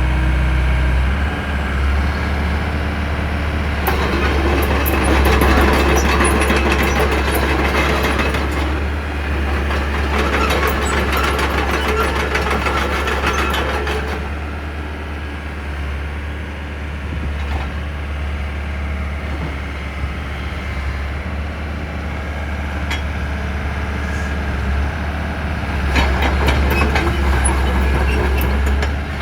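Takeuchi TB180 midi excavator's diesel engine running steadily. Several stretches of heavy metallic clattering and rattling sound over it, in the first half and again near the end.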